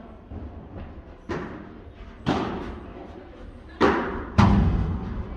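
Padel rally: the ball struck by solid padel rackets, four sharp hits with echo in the hall, the last two close together and the last with a deeper thud.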